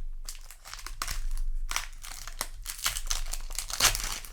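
Crinkling and rustling as a trading card booster pack's wrapper and cards are handled, in a run of short, irregular crackles.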